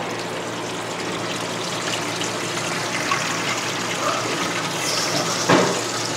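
Water draining from a bathroom sink basin down a newly installed drain and white PVC P-trap, a steady rushing flow, with one sharper, louder sound about five and a half seconds in. The drain is under test and flows freely without leaking.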